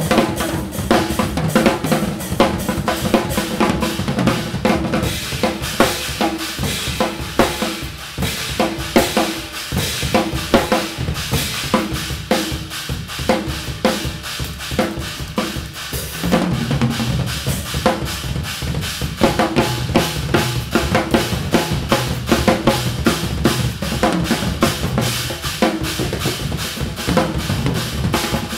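Two drum kits, Gretsch drums with Sabian cymbals, played together in an improvised duet: a dense, unbroken flow of snare, bass drum, tom and cymbal strokes with rimshots.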